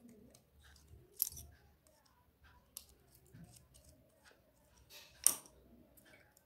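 Faint small metallic clicks and scrapes of a screwdriver working a screw out of a sewing machine's shuttle hook race assembly, with a sharp click about a second in and a louder one near the end.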